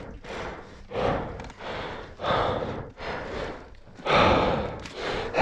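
A man breathing hard, with heavy, gasping breaths about one a second, out of breath from exertion.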